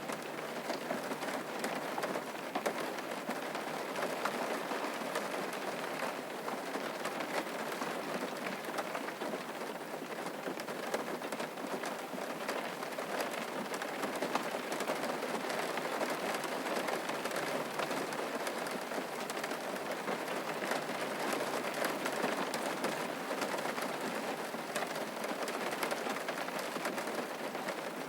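Steady rain falling: a dense, even hiss of drops with fine patter.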